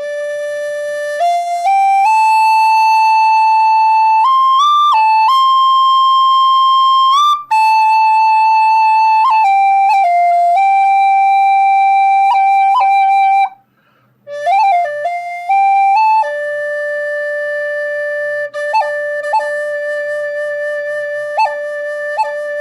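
Native American flute (shamanic flute) playing a slow melody of long held notes that step up and then back down. A short break comes about two-thirds through, followed by a quick ornamented run. It ends on a long low note decorated with brief upward flicks.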